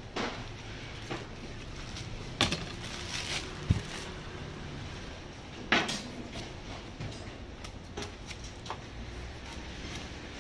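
Large cleaver-style knife paring the rind off a hand-held pineapple: irregular sharp cuts and scrapes every second or two, with one short dull knock a little over a third of the way in.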